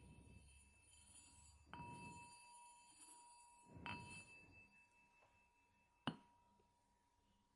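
Faint small bell struck three times, about two seconds apart, each strike leaving a high, steady ring that carries on under the next.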